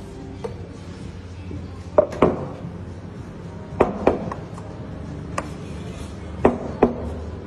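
Steel milk jugs and cups knocked and set down on a wooden café counter: sharp knocks, mostly in pairs, three times about two seconds apart, over a low steady hum.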